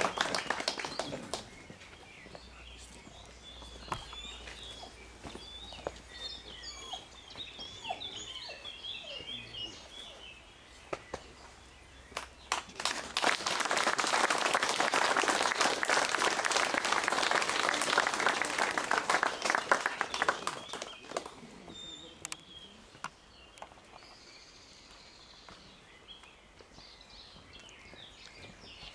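Small crowd applauding for about eight seconds, starting some 13 seconds in and then fading. Before it, a round of clapping dies away at the very start, and songbirds chirp in the quieter stretches.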